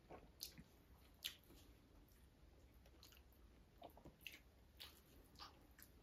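Faint, wet chewing and lip smacks of people eating soft, sauce-soaked Turkish 'wet' hamburgers. A few brief smacks are scattered through it, the loudest about a second in.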